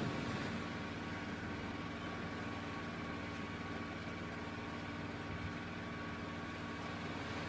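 A steady engine hum with a constant hiss, unchanging throughout.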